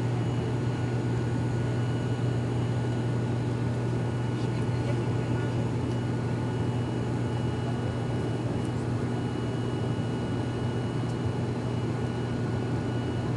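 Cabin noise of an ATR 72-500 twin-turboprop airliner in flight: a steady low propeller drone with a few thin, constant high whines over an even hiss of airflow.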